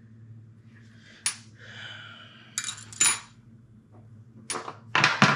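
Sharp metallic clinks and taps of steel hand tools on metal, about five spread through the few seconds, some ringing briefly, with a low steady hum underneath.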